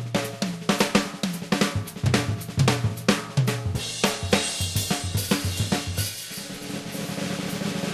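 Jazz drum kit playing a busy passage of snare, bass drum, hi-hat and cymbal hits over short bass notes, with the cymbals washing more densely about halfway through.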